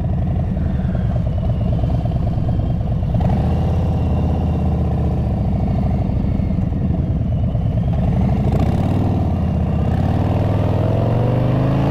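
Harley-Davidson Breakout's Milwaukee-Eight V-twin with aftermarket exhaust pipes, running at low road speed; its pitch rises over the last couple of seconds as it accelerates.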